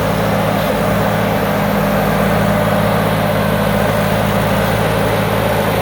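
Combine harvester's four-cylinder turbo diesel engine running steadily at an even pitch, heard through its modified exhaust pipe.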